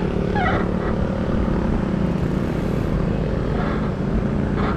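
Motorcycle engine running steadily while being ridden, over a constant rush of road and wind noise.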